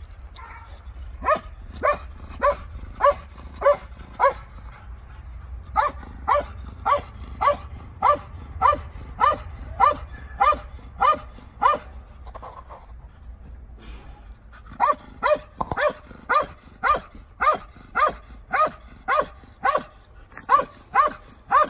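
A rubble-search dog barking repeatedly at a person lying hidden in the rubble, about two barks a second in three runs with short pauses: a bark alert signalling the find.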